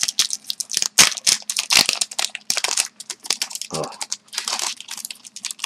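A trading card pack's wrapper crinkling and tearing as it is opened by hand, in a run of irregular crackles.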